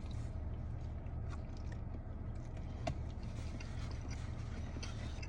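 Chewing and biting into a taco, with small wet mouth clicks and one sharper click about three seconds in, over the steady low hum of a car.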